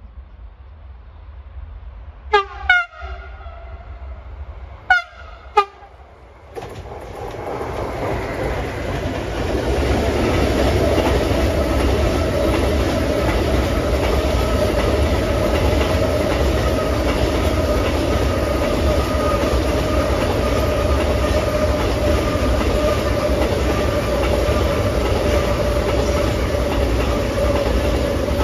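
An approaching Siemens Vectron electric locomotive sounds its horn in two pairs of short blasts, the driver's greeting to the trackside watcher. Then the train passes close by, and a long string of covered hopper wagons rolls past with a loud, steady rumble and clatter of wheels on rail.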